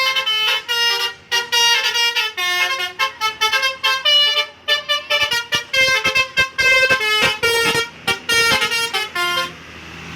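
Bus 'telolet' Basuri multi-tone horn playing a fast tune of short, staccato notes that step up and down in pitch. The horn stops about a second before the end, and a rising rush of noise takes over.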